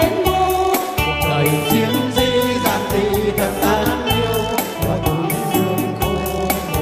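A group of men and women singing into microphones over amplified backing music with a steady beat and bass.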